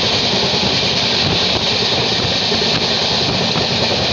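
Passenger train running at speed: a steady rumble of wheels on rails mixed with rushing air, heard through an open window of the carriage.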